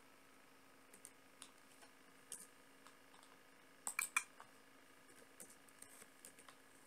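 Scattered computer keyboard and mouse clicks while text is edited, with a quick cluster of three or four clicks about four seconds in, over faint room hiss.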